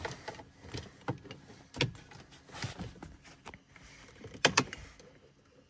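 A series of clicks and knocks from handling inside a car's cabin, with two sharp clicks about four and a half seconds in.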